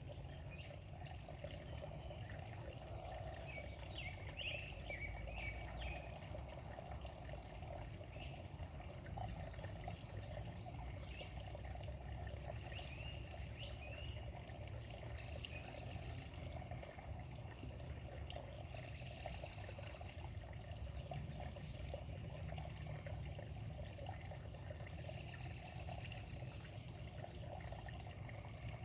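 Steady trickle of running water, with birds chirping and trilling now and then.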